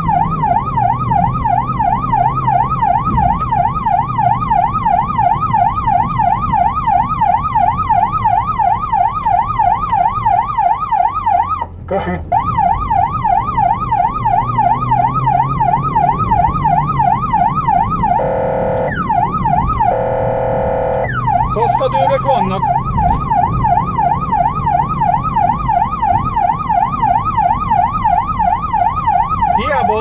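Emergency siren on a blood-transport car in fast yelp mode, rising and falling about three times a second over engine and road noise. It cuts out briefly a little before halfway, and a little past halfway two steady horn blasts interrupt it before the yelp resumes.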